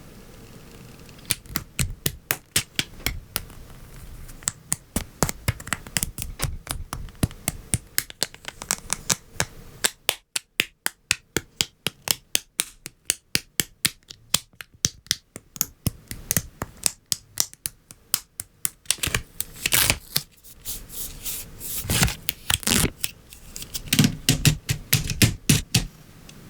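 LEGO Technic plastic parts being assembled by hand: a steady stream of sharp clicks and snaps as pins and beams are pressed together. A fast, even run of clicks comes in the middle, and heavier, rougher presses come near the end.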